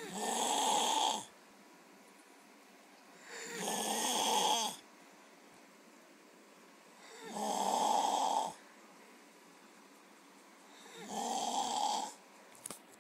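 A sleeping man snoring: four loud snores about every three and a half to four seconds, each lasting about a second, with quiet between them.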